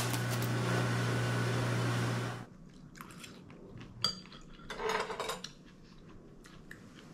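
Quiet clinks and clicks of chopsticks and utensils against bowls and containers, with small eating sounds and a brief louder noise about five seconds in. Before that, a steady low hum with hiss cuts off abruptly about two and a half seconds in.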